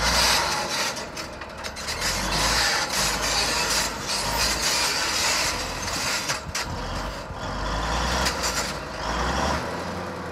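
Komatsu D155-1 bulldozer's diesel engine working under load while it rips rocky ground. The steady rumble swells and eases every few seconds.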